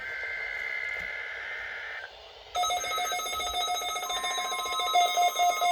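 NOAA Weather Radio data burst, a steady two-pitch warbling tone, for the first two seconds as the alert message closes. About two and a half seconds in, a weather-alert receiver's electronic alarm starts: a loud, buzzy beeping with a fast pulsing beat, set off by the next station's alert test.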